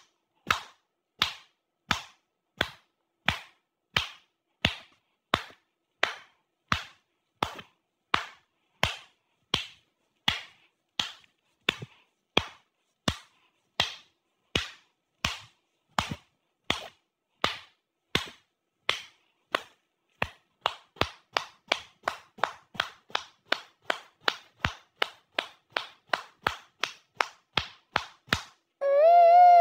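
Sharp, evenly spaced ticks, about one every 0.7 s, speeding up to about three a second some twenty seconds in. Near the end a loud, wavering pitched sound begins.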